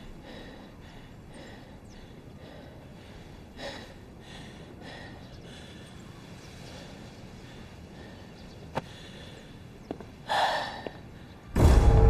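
A man's tense breathing with a short gasp, and a couple of sharp faint clicks, over a low quiet background. Half a second before the end, a loud, low, sustained music sting hits suddenly.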